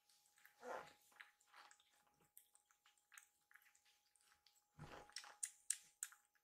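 Two kittens eating dry kibble from ceramic bowls: faint chewing and crunching with small clicks throughout, and two louder bumps, one about a second in and one near five seconds.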